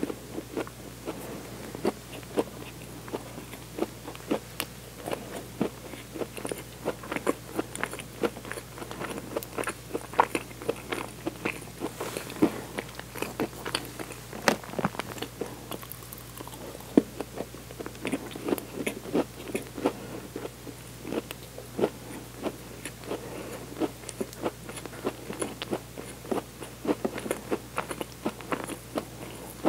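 Close-up chewing of a soft bread bun: many small, irregular wet mouth clicks and smacks, picked up close on a clip-on microphone, over a faint steady low hum.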